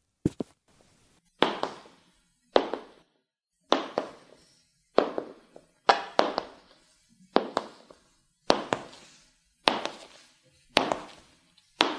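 High-heeled shoes walking slowly on a hard floor: a sharp click about once a second, each step a quick double tap, with an echoing tail after each.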